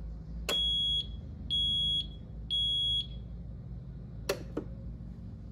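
SL-2000 duct smoke detector in alarm during a test with its test/reset button held in, sounding three high-pitched beeps of about half a second each, half a second apart: the temporal-three alarm pattern. Two short clicks follow about a second later.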